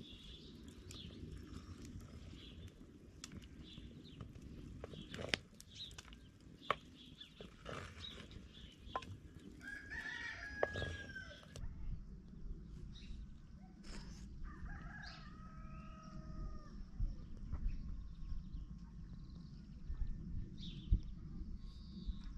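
A rooster crowing twice, about ten seconds in and again a few seconds later, over a low rumble with scattered clicks and knocks.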